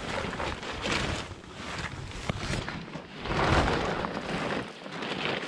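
Nylon fabric of a Quechua 2 Seconds pop-up tent rustling and swishing as its red pull tags are drawn to fold it, with the loudest rush of rustling about three and a half seconds in.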